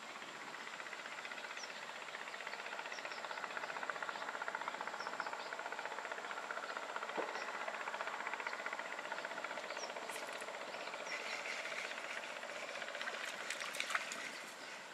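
Open-air ambience by a pond: a steady hiss-like background with scattered short bird chirps. A few sharp clicks come near the end.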